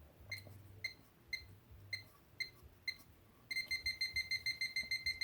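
Liberty safe's electronic keypad lock beeping. It gives six single beeps about half a second apart, then, about three and a half seconds in, breaks into fast continuous beeping of about six a second. The continuous beeping is the lock's failure signal, which turned out to be caused by a weak 9-volt battery.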